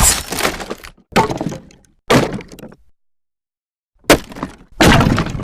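Debris sound effect: a series of five short crashes of breaking, falling debris, each hitting sharply and trailing off within a second, with a pause of about a second in the middle.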